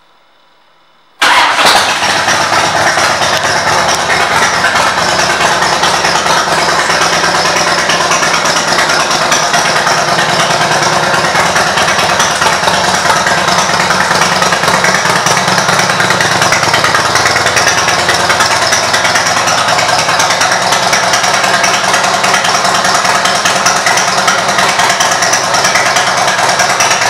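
A 2000 Harley-Davidson Wide Glide's Twin Cam 88 V-twin with Vance & Hines pipes starts about a second in, then runs loud and steady at idle.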